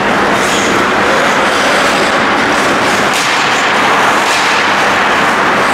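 Ice hockey game sound in an ice hall: a steady rush of noise from skates and the hall, with a few scattered sharp knocks from sticks and puck, over a low steady hum.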